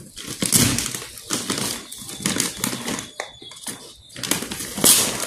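Black plastic courier bag crinkling and rustling in irregular bursts as it is handled and cut open with scissors.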